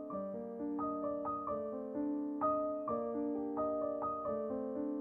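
Background piano music: notes struck two or three times a second over held chords.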